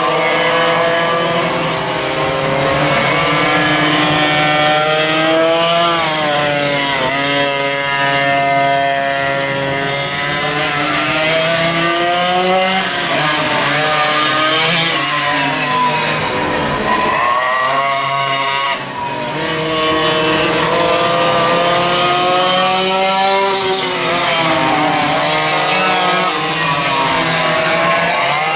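Several vintage racing go-kart engines running on track at once, their pitch climbing and falling over and over as they accelerate and ease off, with a brief dip about two thirds of the way through.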